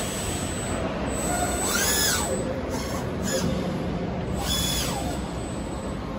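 160-ton all-electric injection moulding machine running its cycle: a servo motor whine rises in pitch, holds and falls away, twice, about two and a half seconds apart, over a steady machine hum.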